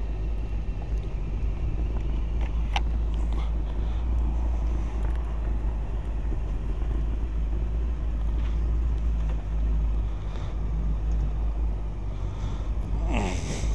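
Motorcycle engine running steadily at low speed, a low even rumble. A single sharp click sounds about three seconds in.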